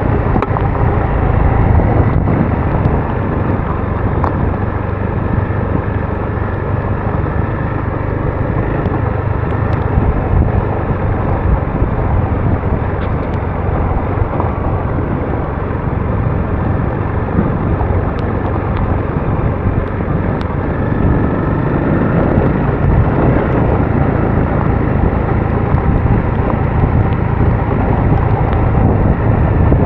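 Adventure motorcycle riding along a country track: its engine running steadily under load, mixed with wind noise.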